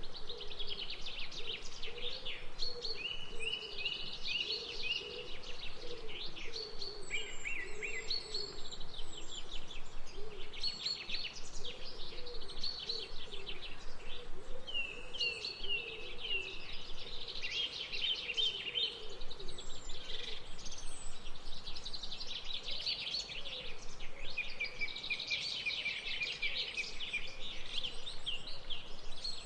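Several birds singing at once in a dense, continuous chorus of chirps and trills, with a lower wavering call running underneath.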